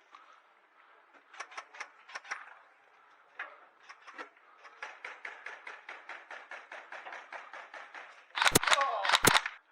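Airsoft guns firing in a confined room: a few scattered shots, then a long automatic burst of about eight shots a second, then several loud close shots with a shout among them near the end.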